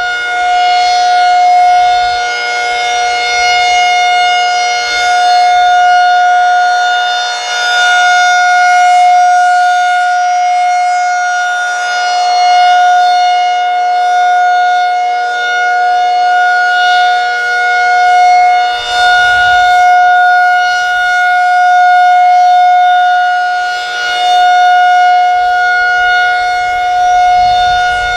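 Federal Signal 2001SRN rotating warning siren sounding a steady single-pitch alert tone for its monthly test. Its loudness swells and fades every few seconds as the rotating head sweeps past.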